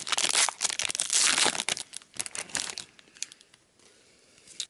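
A foil trading-card pack wrapper being torn open and crinkled. It is a dense crackle for about three seconds, then a few sparser crinkles, with one last sharp one at the end.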